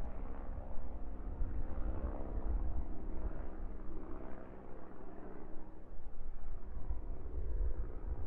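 Uneven low rumble of wind buffeting the microphone, with a faint steady hum underneath.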